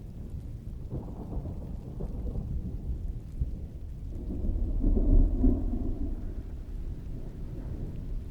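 Distant rolling thunder rumbling low and continuously, swelling to a loud peak about five seconds in and then fading, over steady rain.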